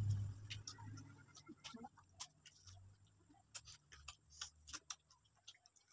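Faint eating sounds of people biting and sucking on ripe mango slices: soft, irregular mouth smacks and clicks, with a low hum in the first second.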